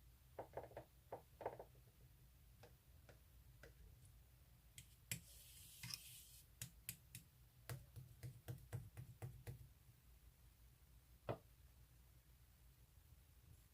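Slime being handled: faint, scattered clicks and small pops, with a short rustle about five seconds in and a busier run of clicks a couple of seconds later.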